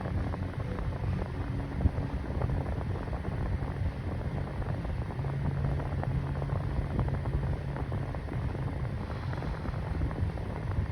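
Mainstays 9-inch box fan running steadily on its medium speed: an even rush of moving air with a faint low hum.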